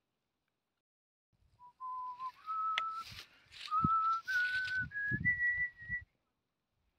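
A person whistling a slow run of held notes that step up in pitch, starting about a second and a half in and stopping about a second before the end, with low thumps and a sharp click underneath.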